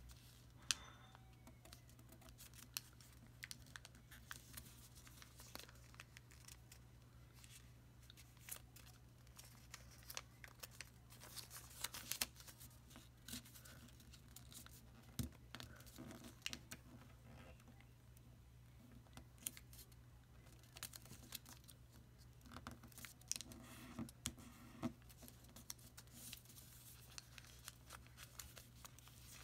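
Origami paper being folded and creased by hand: faint, scattered crinkles and clicks of the paper over a steady low hum.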